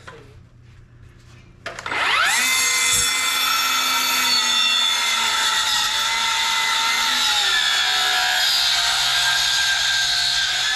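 Handheld electric circular saw spinning up quickly about two seconds in and then cutting steadily into an oak post with a high whine.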